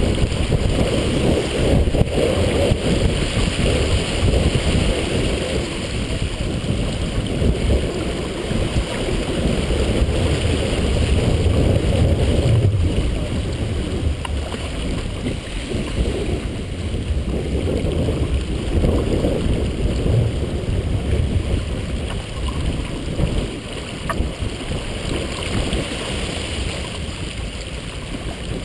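Strong wind buffeting the microphone in uneven gusts, over the rushing hiss of water streaming past the hull of a heeled sailboat under way.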